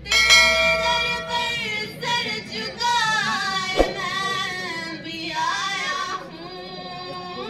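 Girls' voices singing a qawwali, with long held notes and melismatic phrases that bend up and down. There is one short knock about four seconds in.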